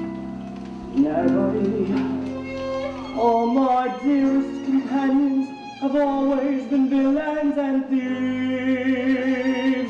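Theatre pit orchestra playing an instrumental passage of a show tune, a melody line of held and moving notes over accompaniment.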